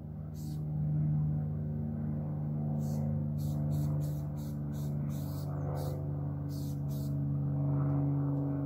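Aerosol spray paint can sprayed in short hissing bursts, about a dozen of them, most in quick succession between about three and seven seconds in, over a steady low hum.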